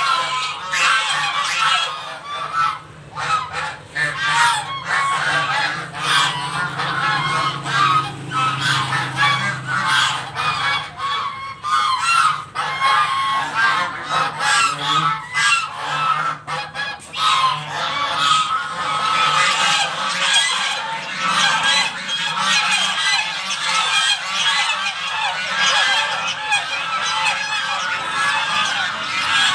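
A flock of domestic geese honking together, many calls overlapping without a break, as they clamour for their morning feed.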